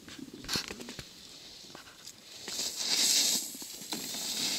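Snowboard edge scraping and hissing across the snow as a rider carves a turn, swelling to its loudest about three seconds in. A few light clicks and knocks in the first second.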